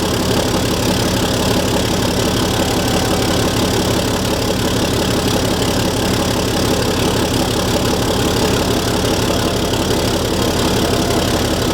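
Engine idling steadily, most likely the truck's 6.7-litre Cummins turbo diesel.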